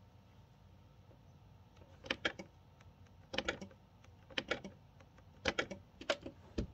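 Laptop keys being typed in short bunches of sharp clicks, about once a second from about two seconds in.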